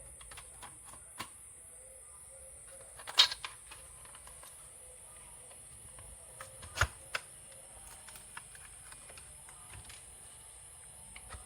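Scattered small clicks and knocks of a laptop motherboard being handled and fitted back into its chassis, the loudest about three seconds in and again near seven seconds, over a faint steady hiss.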